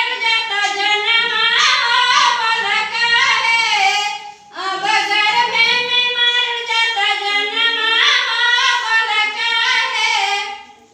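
A girl singing in a high voice, two long melodic phrases with a short break for breath a little over four seconds in, the second fading out near the end.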